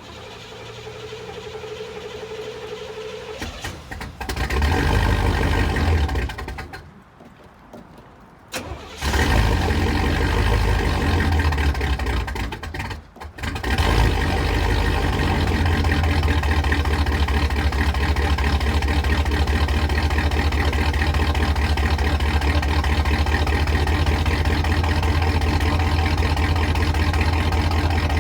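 Chevy 305 V8 of a 1982 Trans Am being started cold after sitting three or four days. The starter cranks and the engine fires about four seconds in, then dies. It fires again about nine seconds in and nearly stalls near thirteen seconds, then settles into a steady idle.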